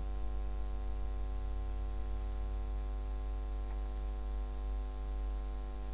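Steady electrical mains hum with a stack of even overtones, a constant buzz that does not change.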